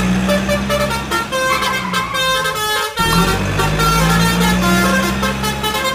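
Sound effect of a bus engine running with short horn toots. The clip breaks off about three seconds in and starts over.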